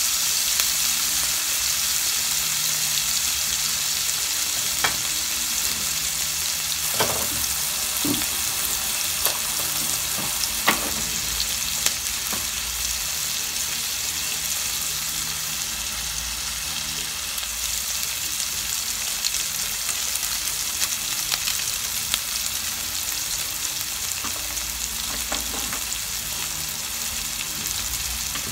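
Diced onions and tomatoes sizzling steadily in hot oil in a frying pan, stirred with a spatula at the start. A few short sharp clicks stand out in the first half.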